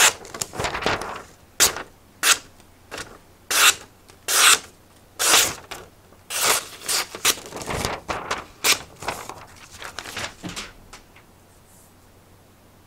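Magazine-page paper wrapping being torn and pulled apart by hand: an irregular run of quick sharp tearing and crinkling strokes that stops about two seconds before the end.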